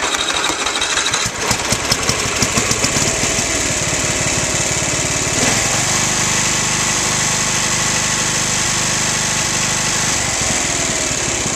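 Toro riding mower's 11 hp Briggs & Stratton I/C 400 cc single-cylinder engine running warm just after a restart: uneven for the first few seconds, then settling into a steady idle. Its tone changes about halfway through and again near the end.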